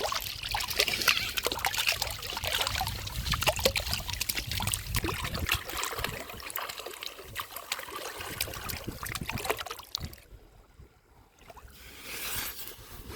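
Water splashing and trickling in irregular bursts, briefly dropping almost to quiet about ten seconds in before picking up again.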